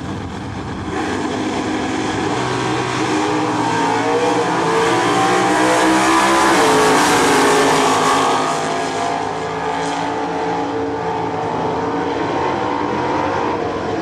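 Two Super Stock drag cars launch off the starting line about a second in and accelerate hard side by side down the quarter mile, their engines rising in pitch. They are loudest around the middle, then fade as they pull away down the track.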